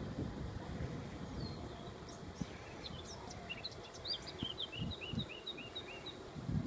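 A songbird singing a string of quick chirps and short whistled notes, ending in a run of short repeated notes, over a low rumble of wind on the microphone.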